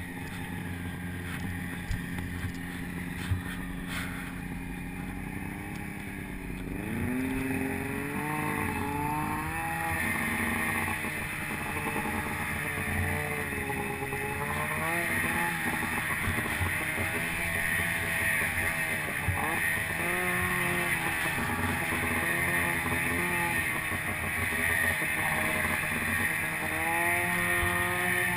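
Snowmobile engine running under way. Its pitch climbs about seven seconds in as the throttle opens, then keeps rising and falling with the throttle, with a steady hiss beneath it. Two short knocks come in the first few seconds.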